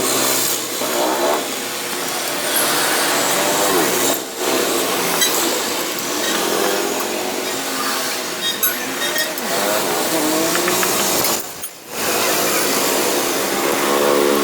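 Steady hissing run of a workshop power tool or air tool, with two brief breaks.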